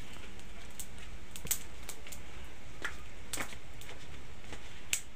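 About six sharp, irregular clicks and ticks over a low steady hum.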